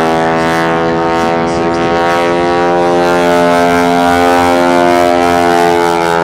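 The Showcat biplane's 450 hp Pratt & Whitney R-985 radial engine and propeller in flight, running at high power in a steady drone that grows a little louder in the second half.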